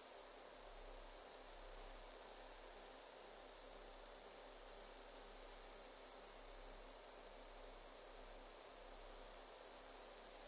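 Steady high-pitched hiss of narrow-band noise, its energy packed near the top of the hearing range, played as a tinnitus masking sound.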